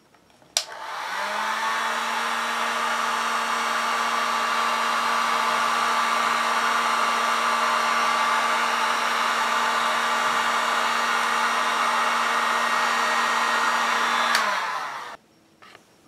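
Mastercraft heat gun switched on with a click about half a second in, its fan motor and blowing air running steadily. It is switched off near the end and winds down.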